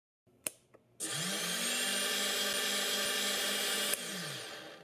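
Small brushless outrunner motor driven from the MR25 quadcopter's repaired main control board, spinning up about a second in with a rising whine. It runs steadily for about three seconds, then spins down with falling pitch near the end: a motor function test of the board's motor output. A sharp click just before it starts.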